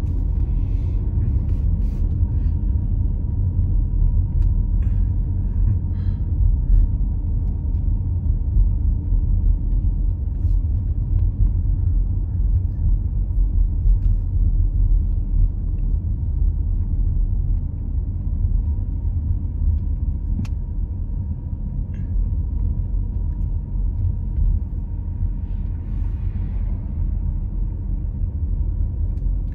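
Road noise heard inside a moving car's cabin: a steady low rumble of engine and tyres on the road, with a faint steady high tone and a few light ticks.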